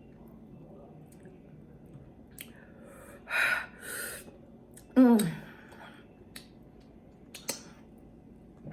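A woman's mouth sounds while eating very spicy shrimp: faint chewing clicks, two short hissing breaths about three and a half seconds in, then a brief falling vocal exclamation, a reaction to the heat of the sauce.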